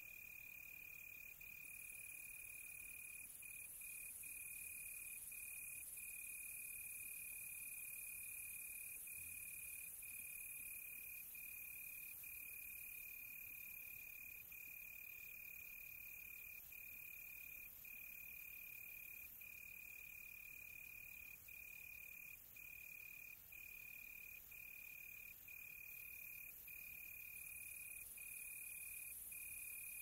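A cricket trilling on one steady high note, broken by short gaps every second or so, over a faint high hiss.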